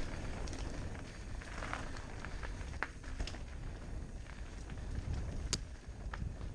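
Mountain bike riding fast down a dirt forest trail: a steady rumble of tyres on the ground and wind on the microphone, broken by a few sharp clicks and rattles from the bike over bumps, the sharpest about five and a half seconds in.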